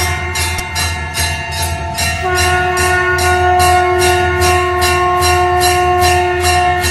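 Conch shell (shankh) blown in a long held note. It weakens about half a second in and is blown again strongly about two seconds in. Over it a temple hand bell is rung rapidly, about five strokes a second.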